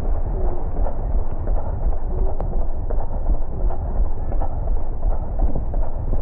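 Rhythmic footfalls of a runner on wet pavement, under a steady low rumble.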